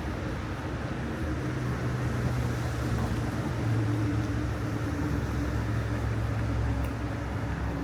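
A steady low engine hum over a wash of city noise, swelling a little around the middle and easing off toward the end.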